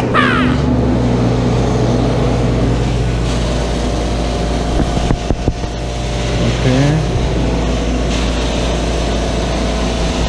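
Advance ET 700 portable carpet extractor running steadily: its vacuum motors whir over a constant low hum, with a few short knocks about five seconds in.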